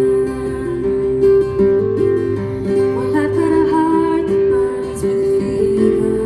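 Acoustic guitar music played live, with held melody notes moving in steps over the strumming.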